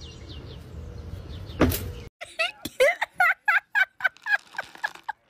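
Low steady background with one brief knock, then a ginger cat's rapid run of short, pitched meows, about four or five a second.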